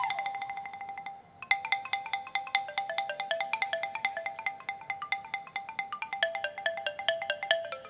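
Pong lang, the Isan hanging wooden log xylophone, struck by two players: a fast roll on one note dies away in the first second, then after a brief pause a melody of quick separate strikes, about four or five a second, steps up and down in pitch.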